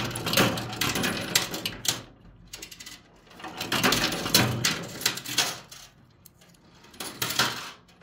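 Coins clinking and clattering against each other in a coin pusher machine, in three bursts of rapid metallic clicks: one at the start, one about four seconds in, and a short one near the end.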